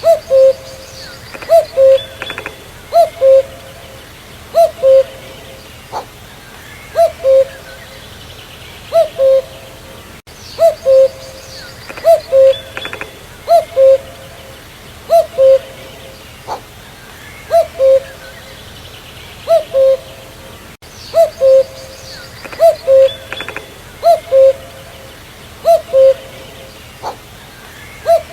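Common cuckoo (Cuculus canorus) calling its two-note "cu-coo" over and over, a higher note dropping to a lower one, about every second and a half. Faint chirps from other birds sound behind it.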